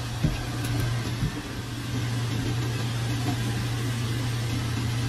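Steady low mechanical hum over a constant hiss, with a soft knock about a quarter second in and another about a second later.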